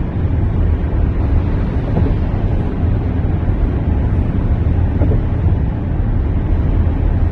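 A car driving along a highway, heard from inside the cabin: steady, low road and wind noise.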